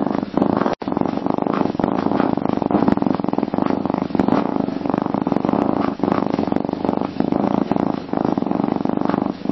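Domestic cat purring in a continuous low rumble that swells and dips every second or two, with one momentary break in the sound just under a second in.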